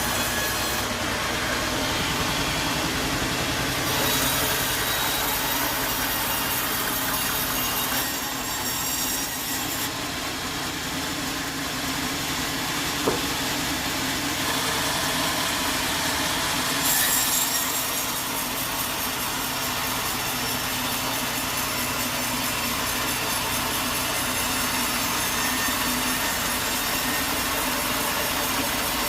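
Sawmill saw running and cutting through wood, a steady machine noise with a low hum under it. A single sharp click about thirteen seconds in.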